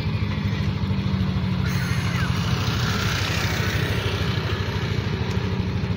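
Motor vehicle engine running steadily at low speed, a low even pulsing hum.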